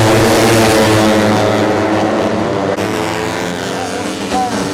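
A pack of 150cc four-stroke underbone race motorcycles running at high revs, several engines overlapping. The sound is loudest in the first second as they go by, then eases slightly as their pitches shift.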